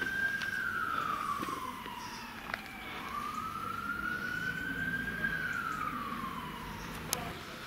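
A siren wailing slowly, its pitch falling, climbing back over a couple of seconds, holding, then falling again.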